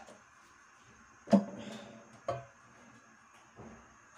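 A metal cooking pot clunking against a gas stove's burner grate: one sharp knock with a short ring after it, then a smaller knock a second later and a faint one near the end.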